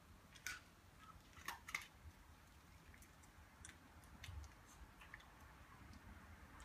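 Near silence with a few faint, sharp clicks and ticks, the clearest about half a second in and a pair around one and a half seconds in.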